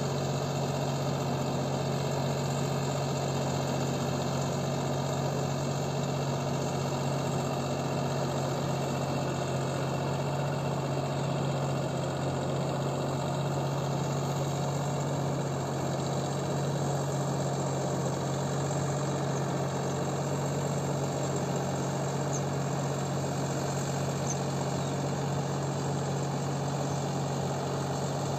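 Deutz-Fahr Agrolux 50 tractor's diesel engine running steadily under load as it pulls a rotary tiller, an even low drone with no change in pitch.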